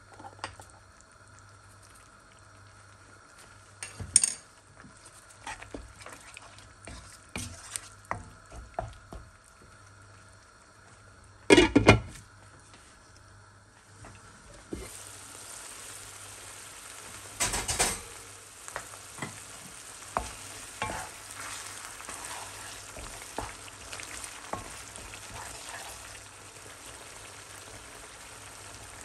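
A spoon scraping and knocking in a cooking pan, with a loud clatter near the middle; about halfway through a steady sizzle of food frying in ghee sets in and the stirring goes on over it.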